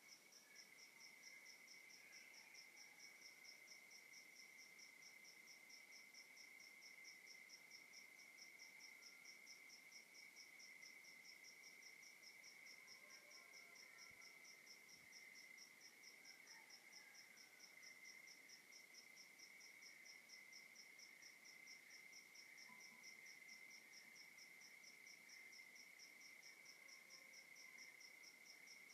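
Faint night chorus of crickets: one steady, unbroken high trill and a higher one pulsing in a rapid, even rhythm, with a few faint scattered calls lower down.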